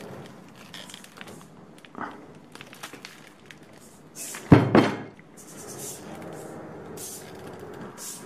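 Two loud knocks in quick succession about halfway through, an iron dumbbell bumping on a worktable while gripped by a soft robotic hand, over a steady low hum.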